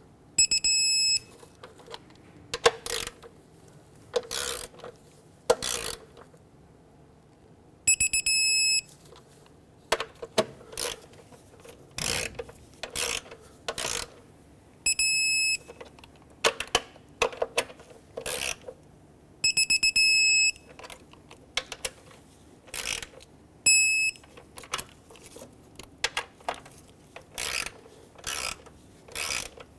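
Digital torque wrench ratcheting in short bursts as intake manifold bolts are tightened in sequence, beeping with a steady high tone about five times as each bolt reaches the set torque of 89 inch-pounds.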